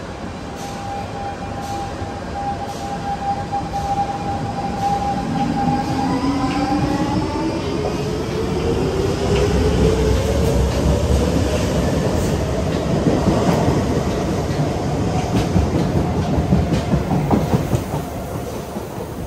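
SIE C651 metro train pulling away from the platform. Its electric traction drive holds a steady whine, then gives several tones rising in pitch together as it accelerates, over a heavy rumble of wheels on rail. The sound fades as the train draws away near the end.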